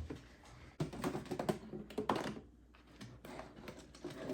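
Irregular light clicks and knocks of candy boxes being handled and moved about on a table, busiest between about one and two seconds in.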